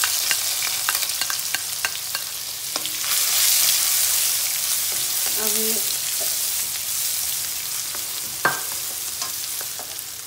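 Chopped red onion sizzling in hot oil in a non-stick kadhai, stirred with a spatula that clicks and scrapes against the pan. The sizzle is loudest as the onion goes in and eases off towards the end.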